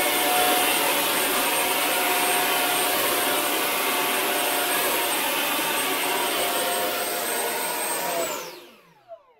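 XFly 64mm electric ducted fan on a 4S LiPo running at high throttle: a steady rushing whine with a high, thin tone. About eight seconds in it is throttled back and winds down, falling in pitch.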